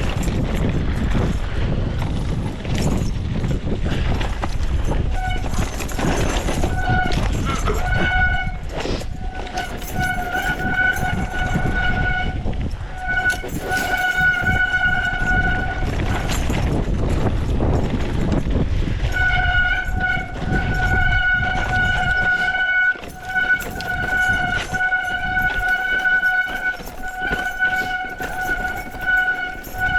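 Mountain bike disc brakes squealing in a steady high-pitched tone, on and off from about five seconds in and almost without a break in the last third. Beneath it is a low rumble of wind and trail that eases after about twenty seconds.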